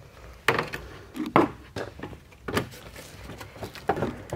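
Rocker switch panel being pushed and snapped into the cut-out of a plastic centre console trim panel: about half a dozen sharp plastic knocks and clicks, spaced roughly a second apart, with handling rustle between them.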